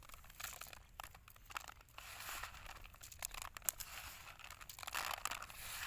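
Crackly rustling and light crunching as hands scoop white flakes and grains from a small wicker basket and drop them onto a banana leaf in a woven tray. The sound is irregular, with scattered sharper clicks, and gets busier after about two seconds.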